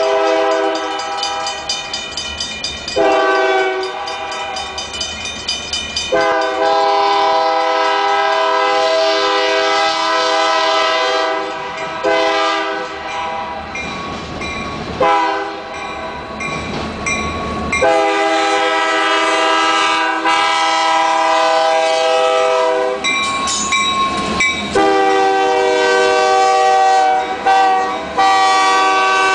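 A diesel locomotive's multi-chime air horn blowing a series of long blasts, with one short blast in between, as a freight train approaches a grade crossing and passes close by. The warning bell at the crossing is ringing underneath the horn.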